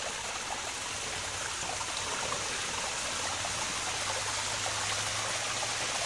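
Shallow water running along the bottom of a concrete drainage pipe: a steady trickling flow.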